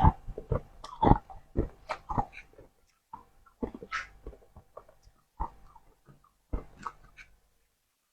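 Crunching bites and chewing of freshly formed humidifier frost: quick, irregular crunches in the first couple of seconds, then slower single crunches about once a second that stop shortly before the end.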